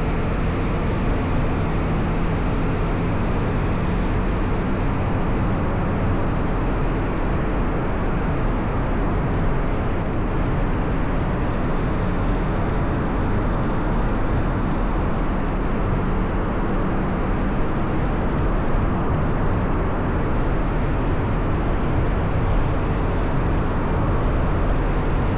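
Steady road and engine noise of a car driving, with no sudden changes.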